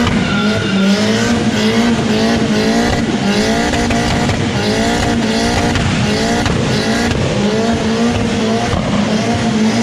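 Mitsubishi Starion with a swapped Lancer Evolution turbo four doing a burnout: the engine is held steady at high revs while the rear tyres spin and squeal. The squeal rises in pitch in repeated waves, a little more than once a second.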